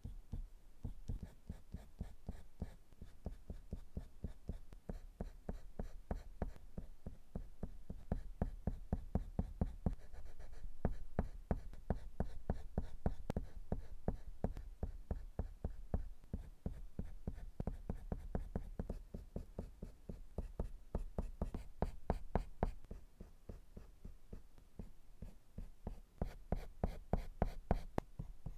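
Colored pencil scratching on drawing paper in quick, short shading strokes, many a second, with sharper, louder strokes in the last few seconds.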